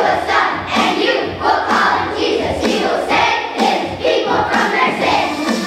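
Children's choir singing a song together in unison, the syllables coming in a steady rhythm.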